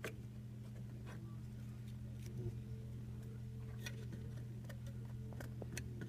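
Faint, irregular clicks and light taps of small plastic parts being handled as a connector is fitted onto an electronic tracker unit, about half a dozen over several seconds, over a steady low hum.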